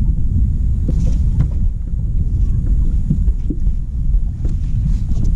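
Wind buffeting the microphone: an unsteady low rumble, with a few faint clicks.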